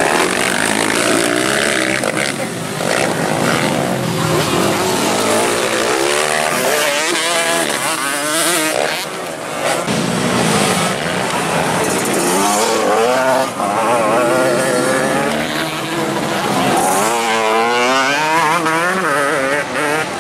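Grasstrack race motorcycles running hard, engine pitch climbing and falling in quick waves as the throttle is opened and closed, with the loudest bursts of revving in the middle and near the end.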